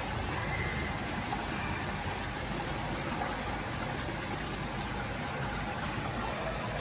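Steady hum and rush of a koi pond's continuous running water and aeration, with a crowd of koi churning the water at the surface.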